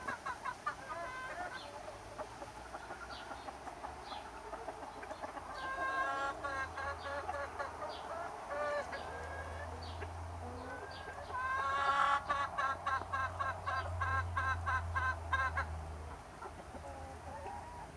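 Chickens clucking, short calls in quick runs, with the loudest run of rapid clucks starting about twelve seconds in.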